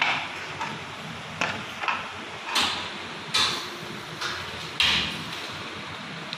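A series of about seven short, sharp sounds at irregular intervals over a steady background hiss.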